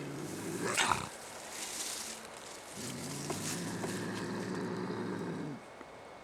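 Trapped bobcat growling low. About a second in it lets out a short cry that rises sharply in pitch, hisses, then growls again for a few seconds.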